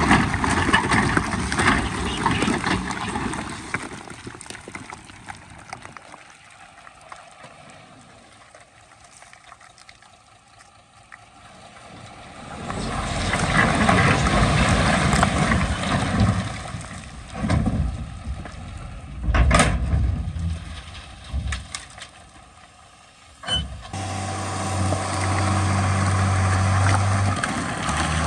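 Heavy earthmoving diesel machinery at work: loud machine noise that swells and fades several times, with a few sharp knocks. Near the end a steady, low-pitched engine note comes in.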